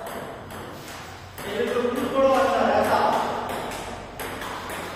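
Table tennis ball clicking off the bat and table in a quick series of sharp pings, with a person's voice talking for a couple of seconds in the middle.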